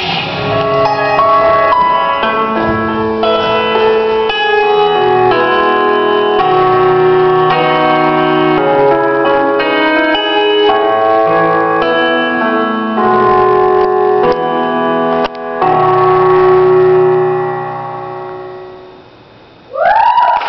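Piano music: the song's piano outro, single notes and chords one after another, ending on a held chord that slowly fades away. Near the end a voice shouts as cheering starts.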